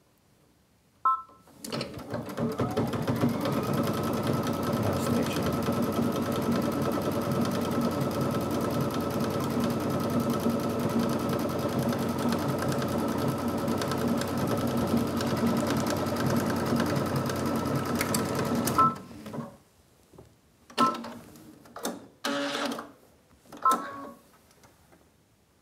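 Brother XV Dream Machine running steadily for about seventeen seconds while it sews a decorative stitch, then stopping abruptly. A short beep comes just before it starts, and a few short beeps and brief clicks follow after it stops.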